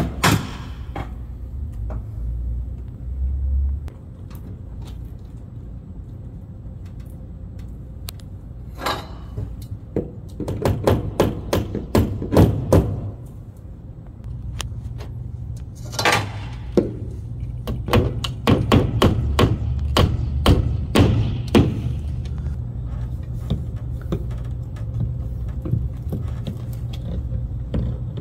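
A hammer tapping the small nails of plastic cable clips that fasten a Cat6 cable along an edge, in runs of quick strikes, over a steady low hum.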